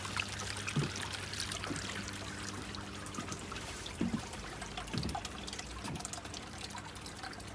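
Steady trickle of water from a stainless-steel column water feature, with a few faint soft knocks.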